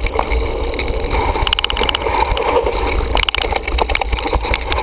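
Mountain bike riding down a dirt forest trail, heard from a bike-mounted camera: wind rumbling on the microphone, tyres rolling over dirt and leaves, and the bike rattling and clicking over bumps. Two short runs of rapid ticking come about one and a half and three seconds in.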